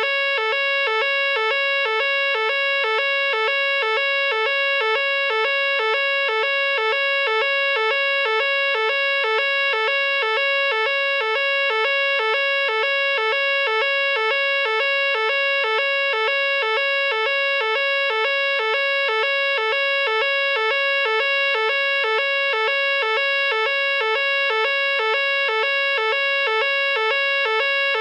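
Nugelec fire alarm sounder sounding its evacuation signal continuously: a loud two-tone alarm, a higher tone alternating rapidly with a lower one in a steady, unbroken pattern. This is the French standard fire-evacuation tone (NF S 32-001).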